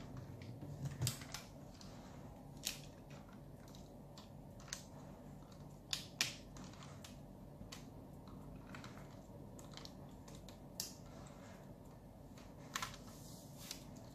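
Irregular small clicks and snaps of a Weijiang W8606 Thunder Leader (Optimus Prime) transforming figure's parts being moved and pressed into place by hand, coming every second or few seconds.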